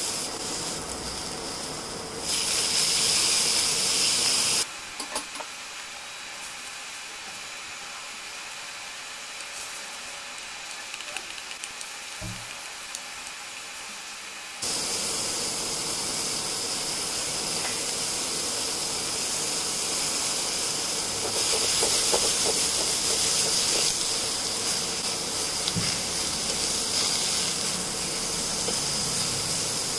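Mushroom slices sizzling hard in olive oil in a very hot nonstick pan, a steady hiss. The sizzle drops quieter about five seconds in and comes back loud about fifteen seconds in.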